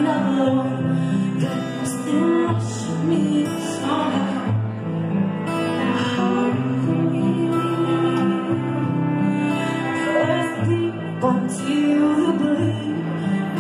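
Live band music: a woman singing into a microphone over a band with acoustic guitar.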